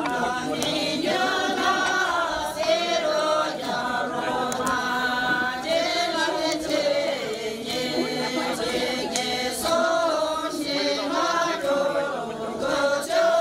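A group of voices singing together in a chant-like Sherpa shyabru song, with long held, wavering notes.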